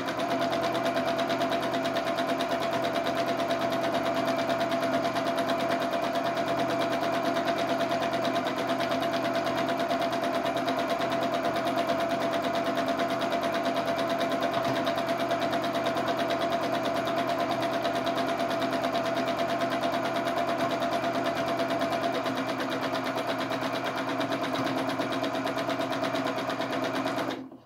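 Janome domestic sewing machine running steadily at speed, its needle stitching rapidly in free-motion stitching with a steady motor hum. It stops suddenly near the end.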